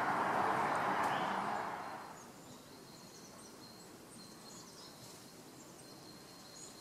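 Steady background noise, a hiss-like rush, fades out about two seconds in, leaving quiet outdoor ambience with faint bird chirps.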